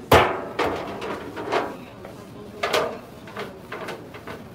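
Stainless steel mixing bowl knocked against a digital kitchen scale with a sharp metallic clank that rings briefly, followed by a few softer knocks and handling sounds.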